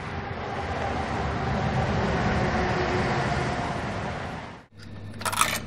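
A steady rushing rumble that builds over the first few seconds and stops abruptly at a cut, followed by a low hum and a few sharp knocks near the end.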